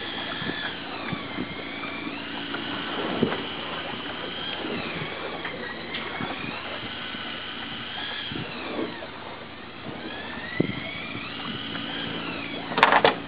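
Electric fishing reel motor whining as a fish is winched up, its pitch sagging and recovering again and again under the changing load. A steady low engine hum runs underneath, and two sharp clattering knocks come near the end.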